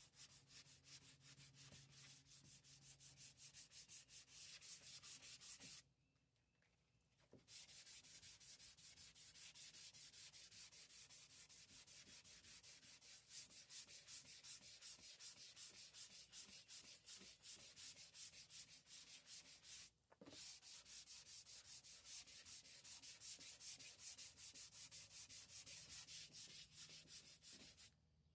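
Sandpaper rubbing over a boat's oxidized fiberglass gel coat in quick, even back-and-forth strokes. It is faint, stops for about a second and a half about six seconds in, and pauses briefly again about twenty seconds in.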